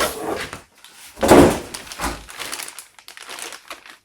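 Packaging and parts being handled: rustling and crinkling with a few knocks, the loudest about a second in.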